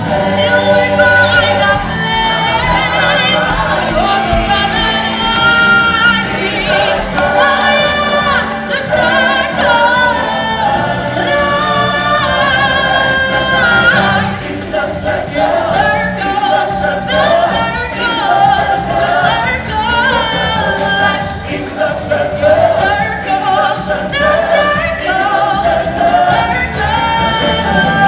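Stage-show music with a choir of voices singing over a full backing track.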